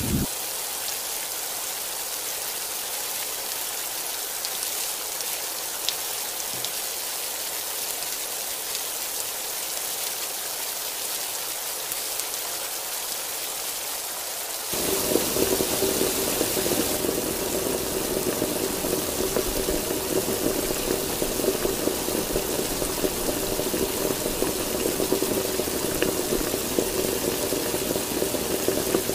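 Heavy rain falling in a steady, even hiss. About halfway through it suddenly becomes louder and fuller, with a low steady hum running under it.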